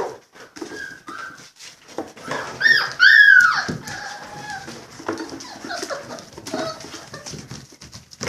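Young Labrador retriever puppies whining and yipping as they play, loudest in a few high-pitched, bending yelps about three seconds in, with scattered short clicks throughout.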